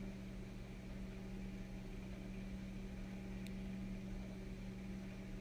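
Faint steady hum with light hiss: a continuous low drone around one pitch, like a fan or an electrical hum under the recording. There is a faint click about three and a half seconds in.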